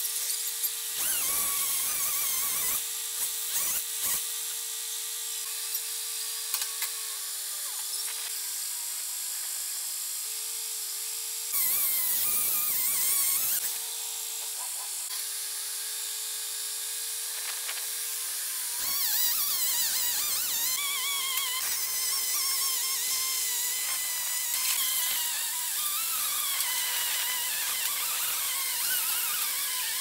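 Background music: a long held note that shifts pitch a few times, with wavering higher tones over a hiss.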